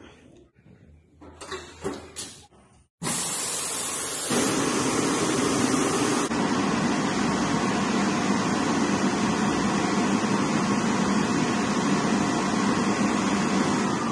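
Battistella Circe pneumatic steam shirt-finisher: a few short hisses and clicks, then about three seconds in its blower starts with a sudden loud hiss and runs on steadily, blowing through the shirt on the dummy.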